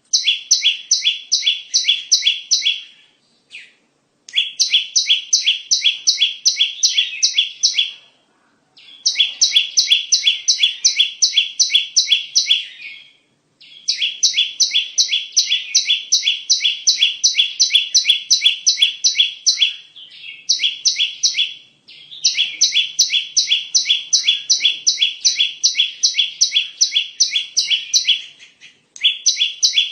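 Prinia (perenjak) song played as a bird-trapping lure call: fast, evenly repeated high chirping notes at about four to five a second, in phrases of a few seconds broken by short pauses.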